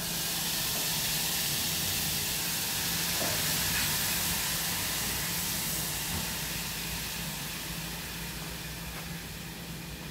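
Food sizzling in a hot pan on a stove: a loud sizzle that starts suddenly and slowly dies down.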